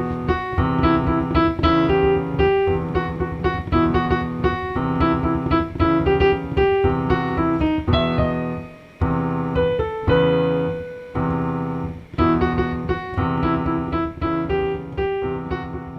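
Background music: piano or electric piano playing a lively melody over chords, with notes struck in quick succession.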